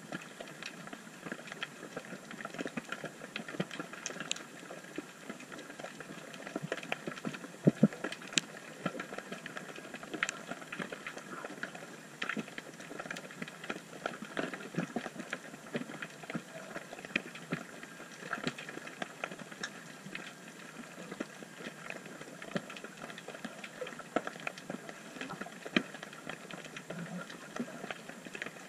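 Underwater reef ambience: a steady crackle of many small, sharp clicks, with a louder knock about eight seconds in.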